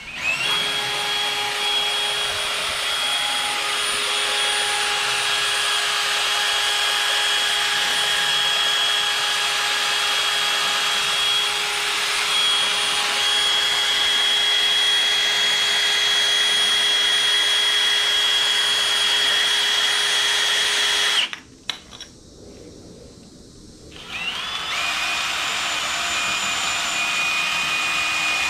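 Cordless drill spinning a wire wheel against a thermostat housing, scouring the old gasket surface clean. It runs steadily with a whine, stops about 21 seconds in, and about three seconds later spins up again with a rising whine.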